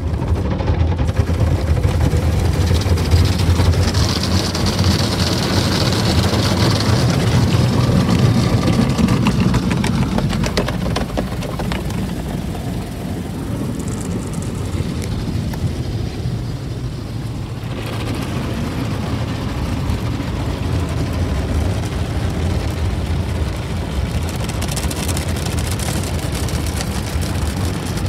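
Ryko automatic car wash working over the car, heard from inside the cabin: water spraying and drumming on the glass and body over a steady low rumble of the wash machinery. It comes in suddenly at the start and eases a little after about ten seconds.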